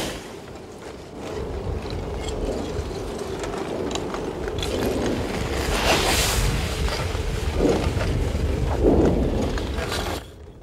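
Front of a blocky lava flow advancing: cooled crust blocks cracking and tumbling with a glassy, clinking crackle over a steady low rumble, loudest in a surge of crackling about six seconds in as a block breaks open.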